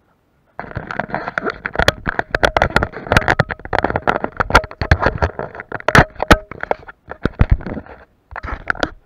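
Handling noise from a small action camera being picked up and moved about: its housing rubbing and knocking against a padded nylon jacket and harness straps in a quick, irregular run of scrapes and clicks, starting abruptly under a second in.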